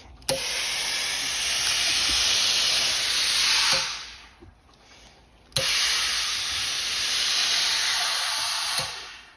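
Steam iron hissing in two long bursts of steam, each a few seconds, with a short pause between them. The steam is being pressed into a dampened strip of fabric to stretch one edge and shrink the other.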